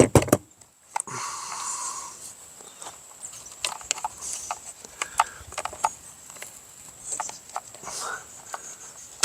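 Hand disassembly of a two-stroke string trimmer: a loud knock at the start, a brief rustle, then scattered clicks and taps of plastic and metal parts as the carburetor and its gasket are worked loose.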